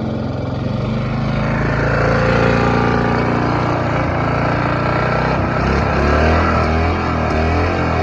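1978 Honda Easy Start push mower's engine running just after being key-started. It gets slightly louder about two seconds in, and its pitch shifts in the second half.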